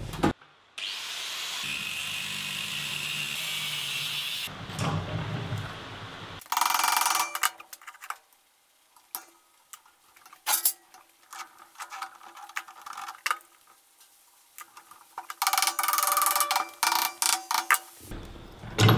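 Hand-tool work on a metal band saw head: a wrench clicking, with bolts and metal parts clinking in short, irregular bursts that crowd together near the end. A steady hiss of unclear source runs for about four seconds near the start.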